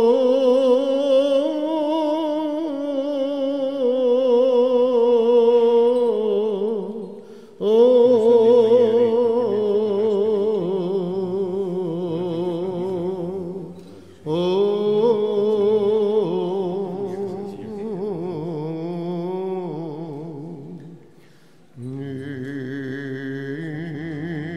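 Byzantine chant: one voice sings four long, ornamented phrases with short breaths between them. A steady low drone, the ison, holds beneath it from about a third of the way in.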